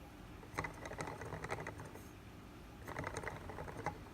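Light, rapid plastic clicking and rattling from a toy praxinoscope, in two bursts of about a second each.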